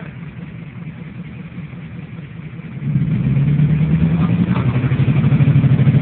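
5.7 Vortec V8 in a Jeep Wrangler YJ idling low and quiet, then running louder at a higher, steady engine speed from about three seconds in, with the engine running hot.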